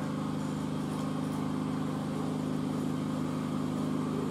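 Small generator's engine running steadily, an even hum with no change in speed.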